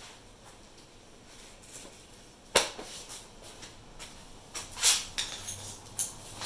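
Faint room tone broken by a few sharp clicks and knocks from handling, the loudest a single sharp knock about two and a half seconds in, then a short cluster of lighter clicks near the end.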